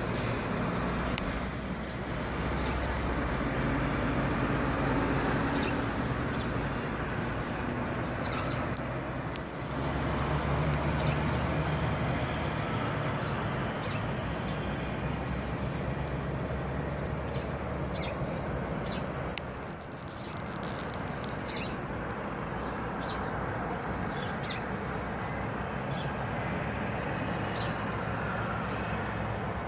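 Steady outdoor road-traffic noise, with a low engine hum that swells twice as vehicles pass, and scattered short high chirps throughout.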